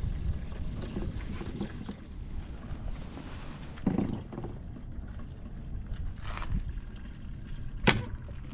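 Gasoline trickling from a fuel can's flexible spout into a generator's fuel tank, under a steady low rumble of wind on the microphone. A single sharp click near the end.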